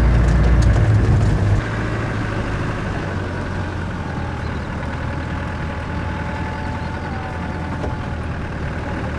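Car engine running and rough-track driving noise while the vehicle drives along an unsealed green lane. The engine is louder for about the first second and a half, then eases to a steady, lower drone.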